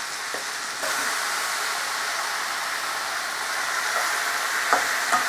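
Onions, tomato and capsicum sizzling in hot oil in a pan: a steady hiss that gets louder about a second in, with a few light clicks of the spatula against the pan near the end.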